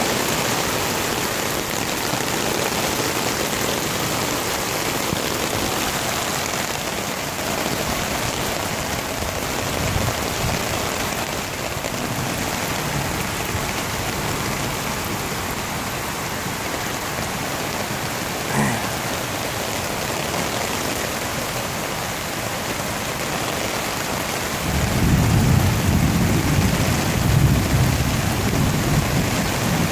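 Heavy rain pouring steadily, an even hiss. About 25 seconds in, a louder low rumble joins it and runs on.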